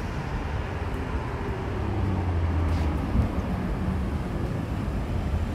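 BMW 540i's B58 turbocharged straight-six heard through a titanium valved exhaust with the valves open: a steady low exhaust note as the car drives up at low speed, growing a little louder about two seconds in.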